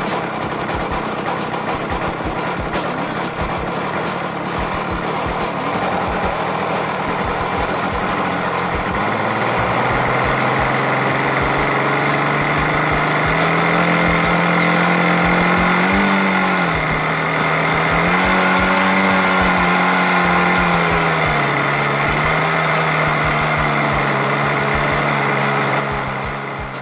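Small nitro glow-fuel model airplane engine running. Its pitch climbs about nine seconds in, then rises and falls several times with the throttle before the sound drops away near the end.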